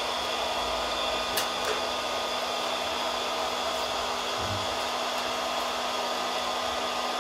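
Steady whir of an electric heat gun (building hair dryer) running, with two light clicks about a second and a half in.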